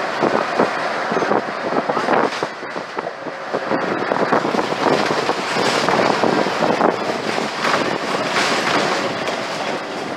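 Interior of a Scania OmniCity (CN94UB) single-deck bus under way: loud, irregular rattling and knocking of its body and fittings over steady road and engine noise, the rattles of an old, worn bus.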